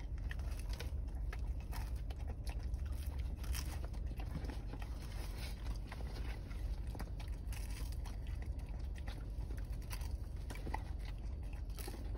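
A dachshund biting and chewing a chicken nugget, with many small crunching clicks, over a steady low rumble inside the car.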